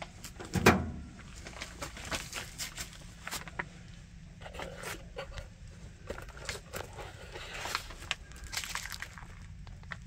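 A single sharp knock a little under a second in, as the removed sheet-metal furnace door panel is set down, followed by scattered light clicks, scrapes and rustling of handling.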